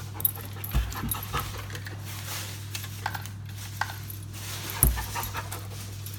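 A dog panting, with a couple of soft thumps, over a steady low hum.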